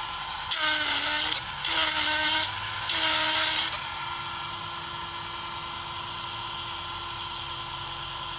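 Granberg G1012XT 12-volt grinder running with a steady hum while its stone is pressed against a saw chain cutter tooth in three quick strokes of about a second each. Each stroke is a loud grinding hiss that pulls the motor's pitch down under load, and the motor runs on freely after the third. It is the few-stroke touch-up that brings a well-kept chain tooth back to factory sharpness.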